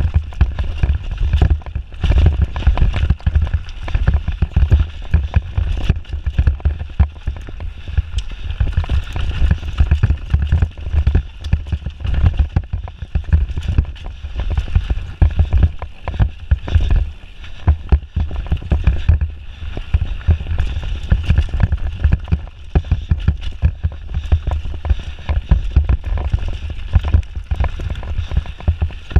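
Mountain bike descending a rough forest dirt trail at speed: continuous rumble of tyres on dirt and stones, with constant irregular knocks and rattles as the bike goes over roots and bumps.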